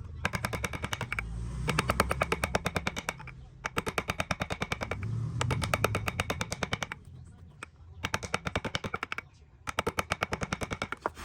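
Several bursts of rapid, evenly spaced knocking from a woodworking tool, about ten strikes a second, each burst lasting one to three seconds with short pauses between.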